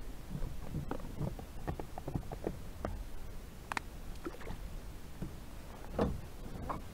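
Water lapping and plashing against a tandem fishing kayak's hull, with small irregular splashes and light knocks on the hull; one louder hit about six seconds in.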